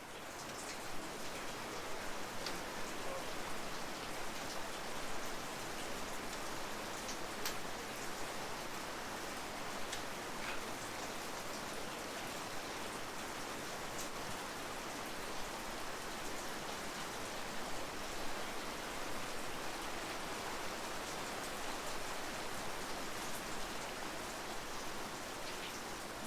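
Rain falling steadily, a continuous hiss with a few sharper drops ticking now and then.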